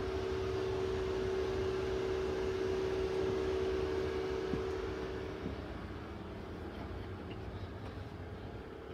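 Steady mechanical hum over a background hiss, carrying one low steady tone that weakens about five and a half seconds in.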